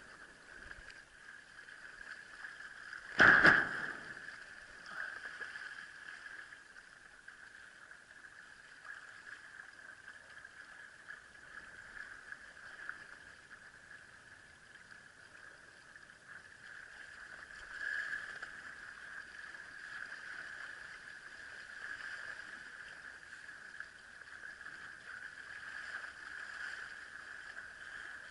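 Steady rush of water and wind as a windsurf board sails through light chop, with one loud thump about three seconds in.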